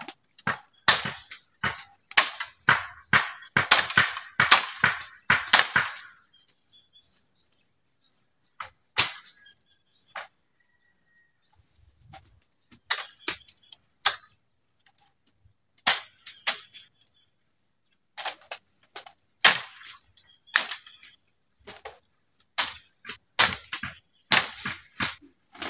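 Machete hacking at bamboo: sharp chopping strikes in quick bursts, with pauses of a second or more between them.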